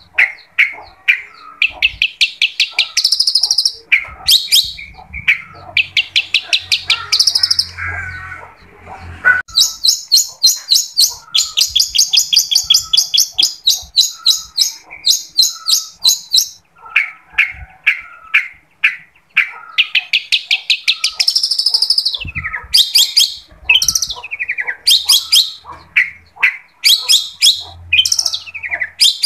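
Long-tailed shrike (cendet) singing a loud, continuous, varied song. Rapid chattering runs of notes alternate with long high trills; the longest trill, near the middle, lasts about six seconds.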